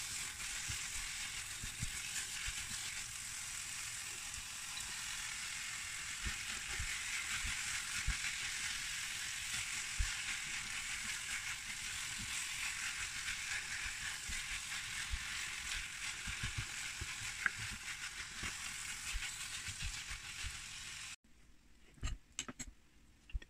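Grated beetroot cooking in butter and sugar in a frying pan, sizzling steadily, with the scrape and knock of a spoon stirring it. The sizzle cuts off suddenly near the end, leaving a few faint clicks.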